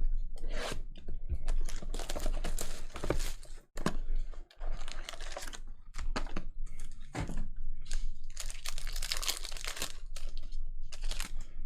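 Trading-card pack wrapper being torn open and crinkled, with a rapid run of crackles and sharp clicks.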